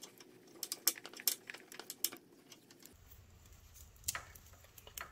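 Electrical tape being pulled off the roll and wrapped around an extension cord's wires: faint, irregular crackling and clicks.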